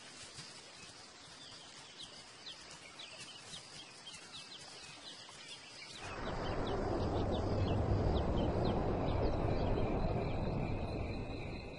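Evening bush ambience: a bird gives a string of short repeated chirps over a faint high insect hum. About halfway in, a louder, even rushing noise with a low rumble swells up, joined by steady insect trilling, then fades near the end.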